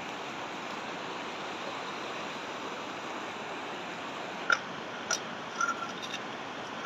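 Steady rush of a shallow river running over stones, with a few short metallic clinks of cookware in the second half, the first one the loudest.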